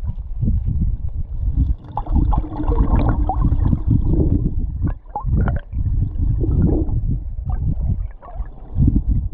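River current heard underwater, muffled: a low, uneven rumble and gurgling with scattered clicks and knocks.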